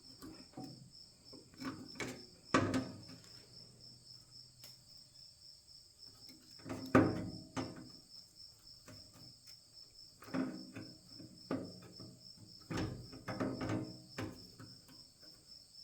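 Metal clicks, clanks and scrapes from a hand tool working on the thin sheet-metal locking tabs inside a steel rolling tool cart, bending them back to disable the drawer locks. A steady pulsing cricket chirp runs behind.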